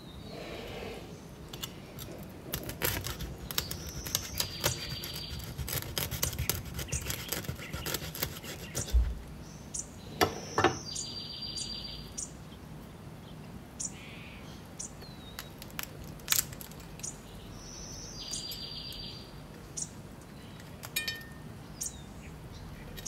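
Recorded birdsong ambience, a bird call repeating about every seven seconds over a bed of chirps, with scattered short clicks and taps and one thump about nine seconds in.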